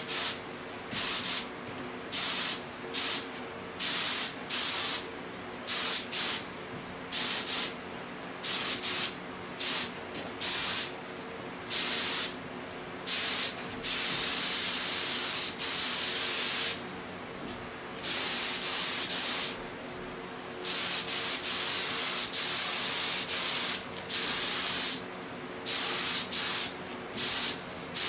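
Gravity-feed air spray gun hissing in many short on-off bursts as its trigger is pulled and released, with two longer passes of several seconds in the middle, while spraying paint.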